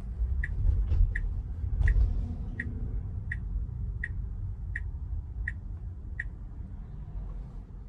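Tesla Model Y's turn-signal indicator ticking about once every 0.7 seconds, over the low rumble of road noise in the cabin. The ticking stops about six seconds in.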